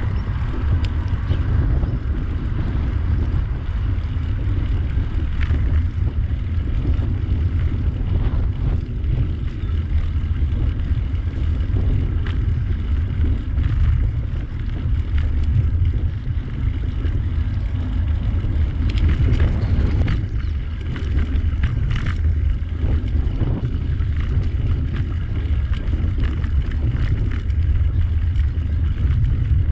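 Wind buffeting the microphone while cycling: a steady, loud low rumble with a few light clicks, the loudest around the middle of the stretch.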